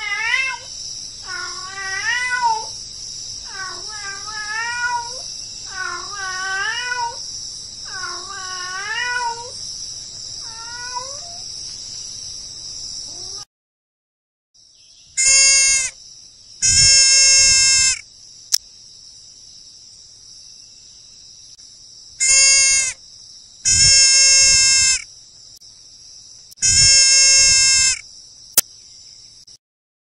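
A porcupine giving a run of wavering, whining calls that bend up and down in pitch, about one a second, fading out after about ten seconds. After a short break, a cow wapiti (elk) gives five loud, steady-pitched calls in two pairs and one more, a short call followed by a longer one. A steady high hiss runs under both.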